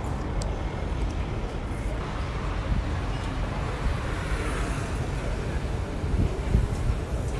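Steady low rumble of street traffic, an even outdoor urban noise with no single event standing out.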